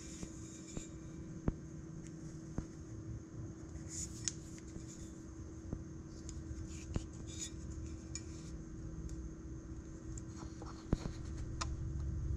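Handling noise of an old, heavily used Japanese nata axe head being turned in the hand: scattered light metallic clicks and taps over a steady low hum, with a low rumble growing near the end.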